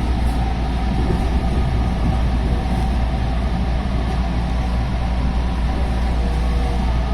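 JR West 221 series electric train running steadily, heard from behind the cab: a continuous rumble of wheels, running gear and DC series-wound traction motors, heaviest in the low bass with a few faint steady tones.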